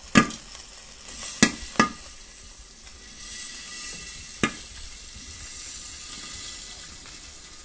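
Steady sizzling of corn kernels toasting in hot oil for tostado, with four sharp clicks, two close together a little over a second in and one more about four and a half seconds in.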